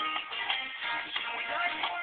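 A song playing as background music.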